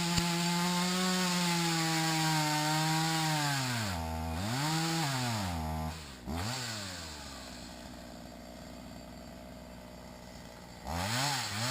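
Two-stroke chainsaw held at full throttle for about four seconds, then let off and blipped twice before settling to a low idle. It is revved up again briefly near the end.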